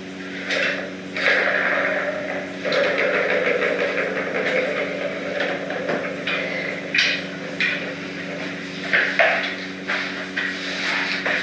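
An angled broom sweeping a hard floor in repeated scratchy brushing strokes, with a few sharp knocks, over a steady low electrical hum.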